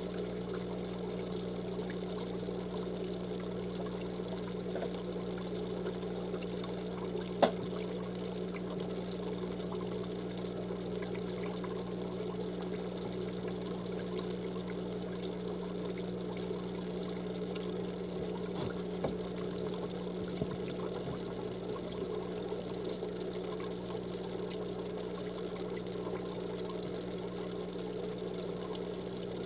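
Aquarium filter running: a steady trickle of water falling back into the tank over a low electric hum, with one sharp click about seven seconds in.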